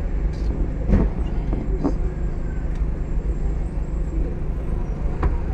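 Street traffic noise led by the steady low hum of a bus engine running close by, with a few short knocks and clicks.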